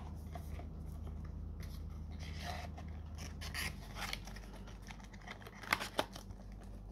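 Fingernails scratching and picking at the thin plastic film on a trading-card deck box to peel it off, a run of small scrapes and crinkles with two sharper clicks near the end.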